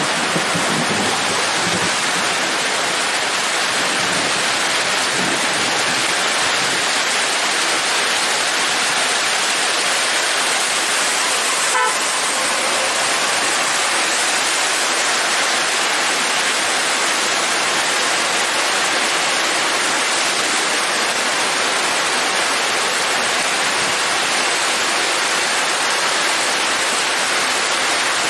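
Heavy rain pouring steadily and drumming on the road, with a truck engine passing low underneath in the first few seconds. A brief vehicle horn toot sounds about twelve seconds in.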